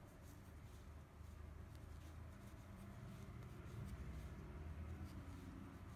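Faint rustling and light scratching of yarn being worked with a crochet hook, with small soft ticks, over a low steady room hum.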